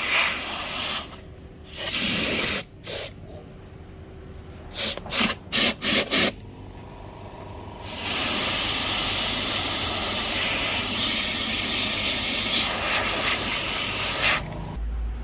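Air blower hissing: several short puffs of air, then one long steady blast of about six seconds that cuts off near the end, used to blow the screen parts clean before lamination.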